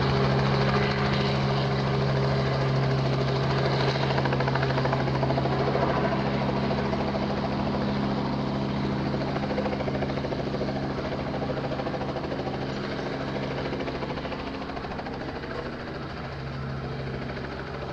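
Light helicopter flying low and loud, with a steady low drone and rapid blade chop, slowly fading as it moves off.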